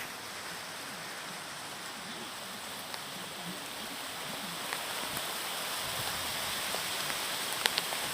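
Heavy rain falling in a steady hiss that slowly grows louder, with a few sharp drop ticks near the end.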